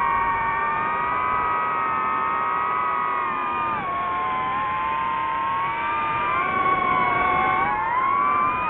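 DJI FPV quadcopter's motors and propellers whining in flight, several close pitches that fall and rise together with the throttle, with a marked drop about four seconds in before climbing again.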